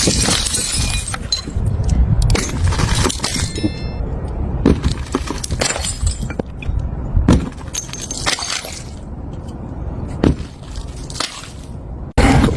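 Glass bottles breaking: a series of sharp crashes and clinks about once a second, over a low rumble.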